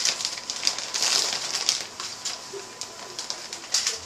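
Crinkling plastic bag of shredded cheese being handled and shaken out into a measuring cup: a dense rustle full of little clicks, loudest in the first couple of seconds and then thinning out.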